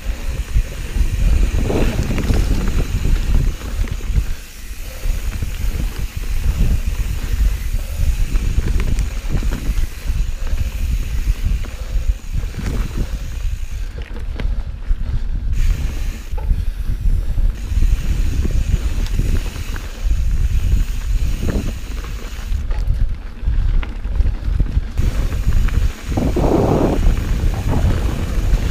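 Wind buffeting the action camera's microphone as a Santa Cruz Hightower mountain bike rolls fast down a dirt forest trail, a constant low rumble with irregular knocks and rattles from the tyres and bike over the rough ground.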